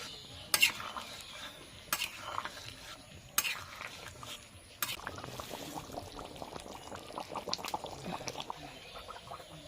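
Pork curry bubbling in a cooking pot, with a spoon knocking against the pot four times, about a second and a half apart, in the first half.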